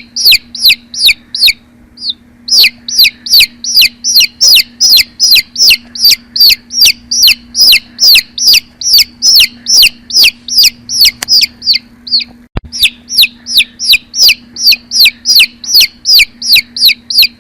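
Baby chicks peeping loudly and insistently, a fast run of short high peeps that each drop sharply in pitch, about three or four a second, with brief pauses twice. A steady low hum runs underneath.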